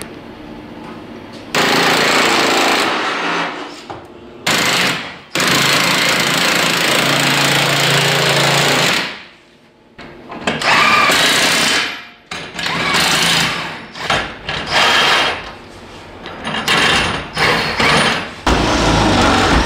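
Impact wrench hammering bolts tight through steel plates on a car's body. It comes in bursts: two long runs of several seconds, then a string of short bursts.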